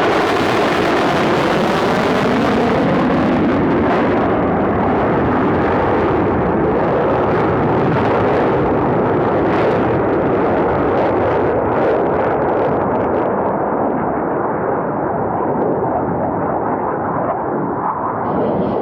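Loud roar of Boeing F/A-18 Super Hornet jet engines as the jets pass low and move away: crackling and sharp for the first few seconds, then a duller, steady rumble.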